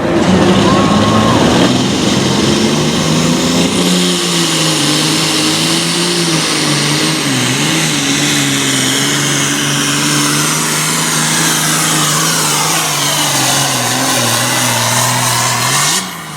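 Super farm class pulling tractor's turbocharged diesel engine running hard under load at near-steady high revs, with a brief dip in pitch about halfway through. A high whine sweeps down and back up near the end, then the sound cuts off suddenly.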